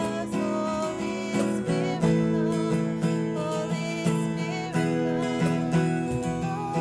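Slow worship music led by a strummed acoustic guitar, with held chords underneath.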